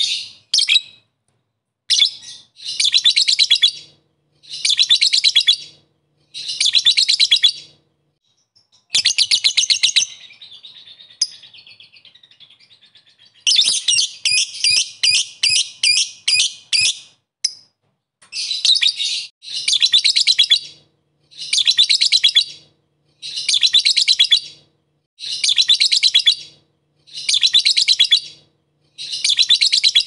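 Lovebird's ngekek: a high, rapid chattering trill in bursts of about a second, repeating roughly every two seconds, with a longer unbroken run of trilling about halfway through. This is the rival-calling ngekek that is played to set other lovebirds calling.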